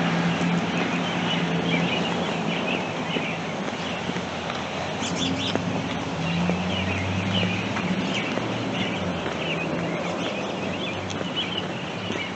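A flock of American robins calling with many short, repeated chirps over a low steady hum.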